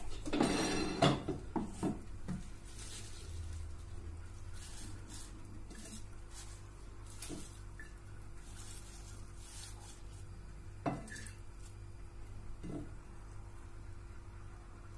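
A stainless-steel mixer-grinder jar clatters against the countertop as it is handled, at the start. After that come soft rustles and a few light knocks as fresh mint and coriander leaves are dropped into the steel jar by hand.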